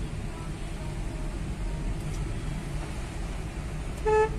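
Steady low rumble of a moving car heard from inside the cabin, then one short, loud horn toot near the end.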